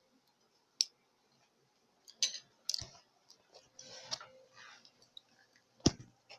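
A few scattered clicks and soft rustles, with one sharper click near the end.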